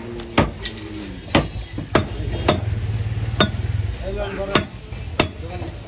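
Butcher's heavy cleaver chopping goat meat on a wooden chopping block: about eight sharp, irregularly spaced knocks.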